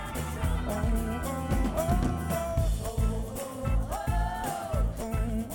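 Live acoustic song: strummed acoustic guitar over a steady beat, with female backing vocalists singing.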